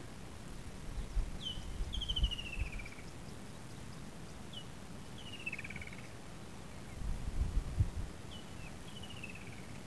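A bird calls three times in natural bush ambience. Each phrase is a short high note followed by a falling trill of about a second. A low rumble, likely wind on the microphone, swells a little between the phrases.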